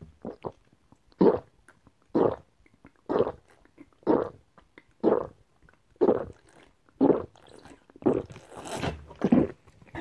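A person gulping apple juice from a tipped plastic jug, with one swallow about every second in a steady rhythm. Near the end comes a longer, breathier sound.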